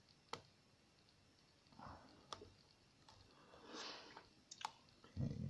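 Faint, sparse clicks of a hook pick working the pins of an ASSA pin-tumbler cylinder, three sharp clicks a couple of seconds apart with soft rustling between, as the pins are set again after one was overset.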